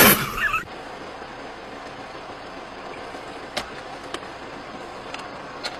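Steady vehicle noise, an even hum and hiss with a few faint clicks, after a short loud burst of sound that cuts off about half a second in.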